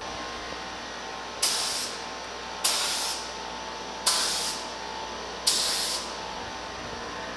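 Paint spray gun spraying base coat in four short bursts, about one every second and a half, each a sharp hiss that starts suddenly and tails off, over a steady fainter hiss.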